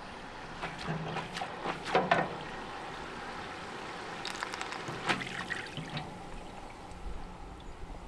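Battered lotus stem sticks deep-frying, the oil sizzling steadily in a commercial deep fryer. A few sharp metallic clatters from the wire fry basket come about one to two seconds in and again around five seconds in, as the basket is handled and lifted to drain.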